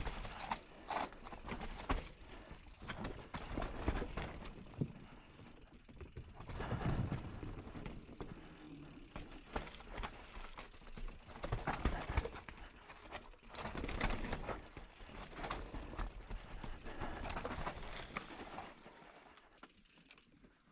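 Mountain bike riding down a rough forest trail: tyres rolling over dirt, roots and rocks, with the bike rattling and knocking on impacts and the rear hub's freewheel ticking while coasting. It goes quieter near the end.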